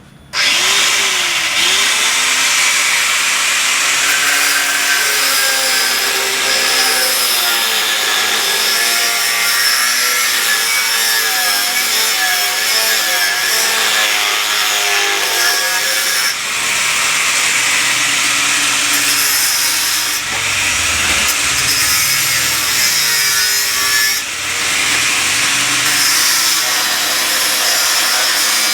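Handheld electric power tool cutting continuously. It starts abruptly, and its motor pitch wavers up and down as the cut loads it, with a few brief dips.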